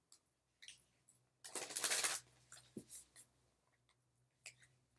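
A deck of reading cards being handled: a brief rustling shuffle about a second and a half in, then a few light clicks of cards.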